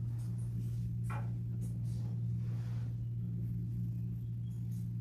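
A steady low hum, with a faint knock or rustle about a second in.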